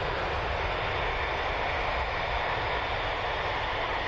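Airbus A320neo jet engines running steadily at low taxi power as the airliner lines up on the runway.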